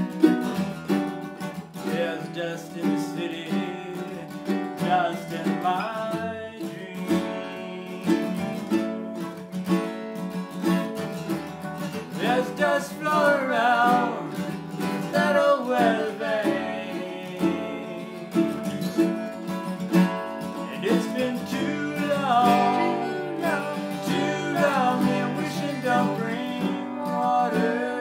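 Acoustic guitar strummed along with a ukulele in a folk song, with singing in places.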